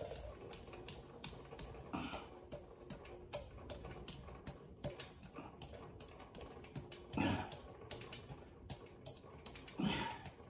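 Small, irregular metallic clicks and ticks as locking pliers clamped on a seized, heat-soaked cylinder-head stud are worked back and forth to break it loose. Three louder sounds come about two, seven and ten seconds in.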